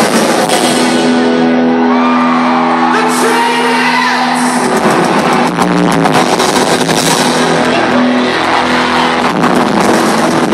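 Live pop-rock band music, heard from the audience in a concert hall, with a chord held through the first few seconds. Audience voices whoop and shout over it.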